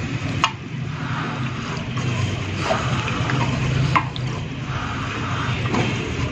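Wet squelching of hands turning marinated fish pieces on a plate, with a few light clicks, over a steady low hum.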